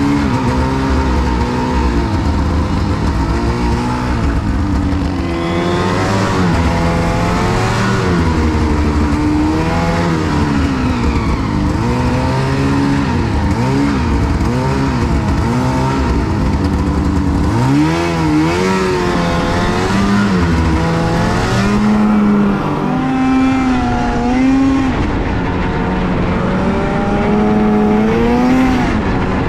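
Snowmobile engine running under varying throttle, its pitch rising and falling again and again.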